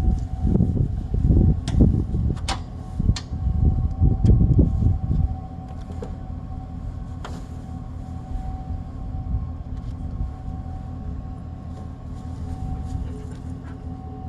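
Pickup truck engine running at low speed, a steady low hum, as the truck backs up to the travel trailer's hitch. For about the first five seconds loud irregular low rumbles and a few sharp clicks sit over it.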